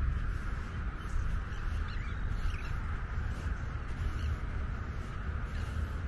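Terns calling: several short, harsh calls at scattered moments over a steady background of many birds, with a low rumble underneath.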